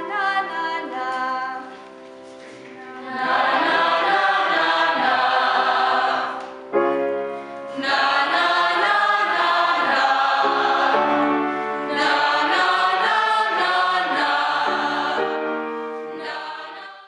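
A mixed group of young singers doing a vocal warm-up, singing held notes together in three loud phrases with quieter held tones between them.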